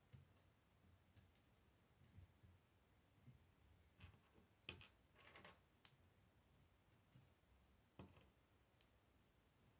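Near silence with scattered faint clicks and light rattles of plastic K'nex rods and connectors being handled and fitted.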